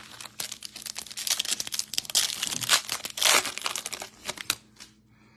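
A foil trading-card pack wrapper being torn open and crinkled by hand: a dense run of sharp crackles that stops about a second before the end.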